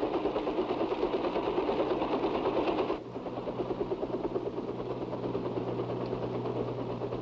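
Helicopter engine and rotors running steadily. About three seconds in, the sound cuts to a quieter, lower steady hum with a fast, even chop: the twin-rotor Kaman HTK-1K drone helicopter hovering under radio control.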